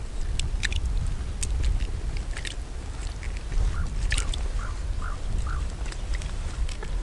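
Steady low rumble of wind on the microphone, with scattered small clicks and crunches of snow and ice being handled close by.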